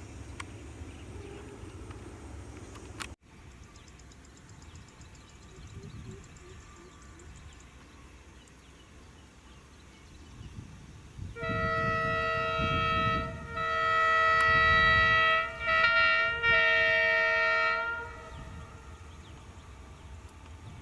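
Locomotive horn sounding a series of blasts, long ones with a short break between them and one brief toot, over about six seconds, with a low rumble of the train underneath.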